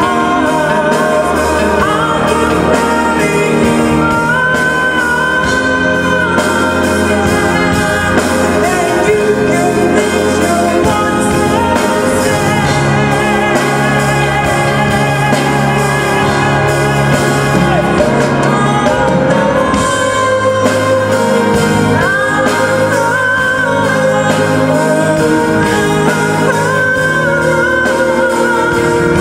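A female singer and a live band performing a song together, the singer holding several long notes with vibrato over a steady band accompaniment.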